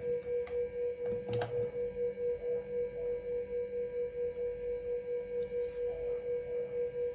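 A laptop sounding a steady high-pitched beep that pulses about four times a second while it fails to start with newly fitted RAM, typical of a memory error. A sharp click about a second and a half in.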